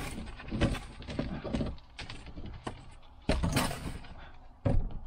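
Irregular knocks, taps and scraping from hand work with tools and material, with a louder clattering scrape about three and a half seconds in and a sharp knock near the end.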